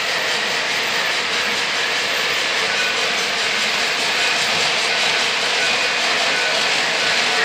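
Lionel O gauge model freight train rolling past on three-rail track, a steady rumble of metal wheels on the rails.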